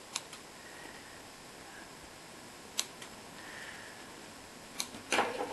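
Small scissors snipping loose sewing threads: three sharp, separate snips spaced a second or two apart, then a louder, longer rustling noise near the end.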